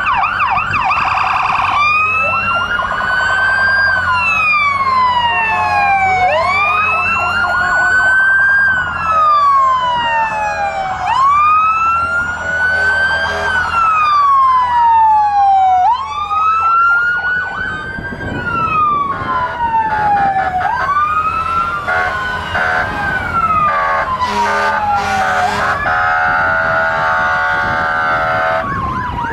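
Several fire truck sirens wailing at once, each in a slow rise and fall that repeats about every four to five seconds. A steady horn tone sounds near the start and again near the end, over a low engine rumble.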